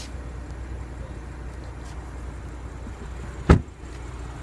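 A car's rear passenger door slammed shut: one loud thump about three and a half seconds in, over a steady low background rumble.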